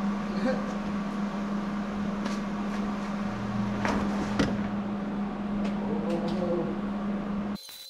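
Welder running while a flange is welded onto a catalytic converter: a steady hum under a continuous crackling hiss with scattered sharp pops. It cuts off suddenly near the end.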